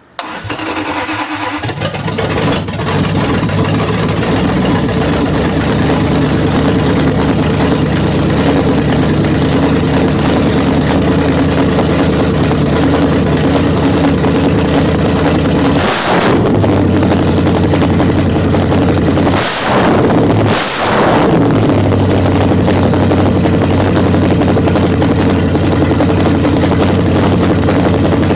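Chrysler 360 small-block V8 with tube headers starting: it catches right away and builds to a steady idle within about three seconds. Its note surges and dips briefly three times around the middle. It runs on a freshly reset choke and with the ignition timing not yet set.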